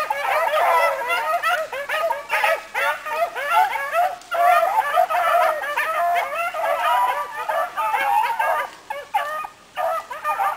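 A pack of bluetick hounds baying in an overlapping chorus while running a trail, many voices calling over one another with a couple of brief lulls near the end.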